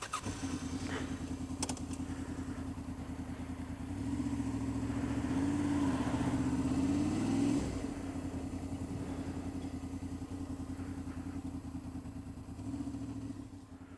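Honda VFR800's V4 engine running while riding at moderate speed. The note climbs a little from about four seconds in, then drops back just past halfway. There are two light clicks about a second in.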